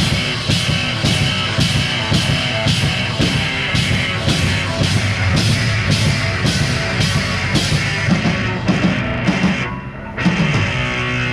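Live rock band playing an instrumental passage, drum kit hitting about twice a second with distorted electric guitar and bass. The song breaks off about ten seconds in, and a final guitar chord rings on.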